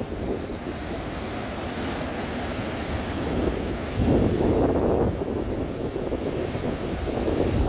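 Sea waves breaking and surging on a rocky shore, with wind buffeting the microphone. A louder surge of surf comes about four seconds in and another near the end.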